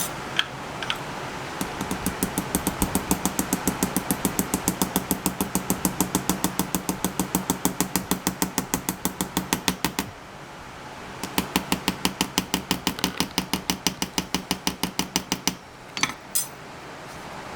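Rapid, even metal tapping, about seven light strikes a second, in two runs with a short break between them: a small hammer seating a pivot bushing down onto its flat shelf in a slipjoint knife handle. A few separate clicks come at the start and near the end.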